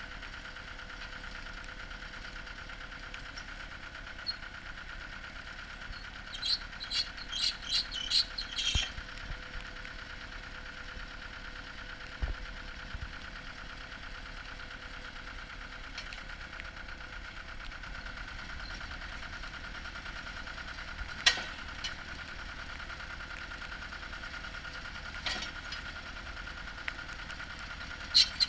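Cable percussion drilling rig's engine running steadily, with a quick run of about seven sharp clanks about a quarter of the way in and a few single clanks later on.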